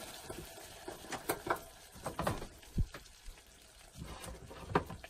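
A handful of light clicks and knocks from a stainless-steel camping pot being handled on a gas hob: its folding wire handle and the plastic ladle in it. Faint bubbling comes from the pot.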